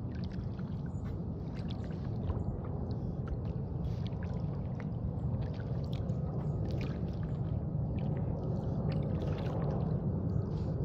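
Paddling a small boat on calm water: a paddle dips and pulls, and water splashes and drips in many small ticks over a steady low rush.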